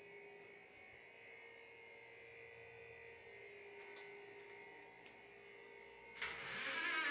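Faint steady electrical hum in a small bathroom. About six seconds in, a much louder sound with a wavering pitch starts suddenly.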